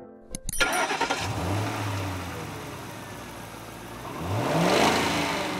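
Matatu minibus engine running amid street noise, then revving up with a rising pitch about four seconds in.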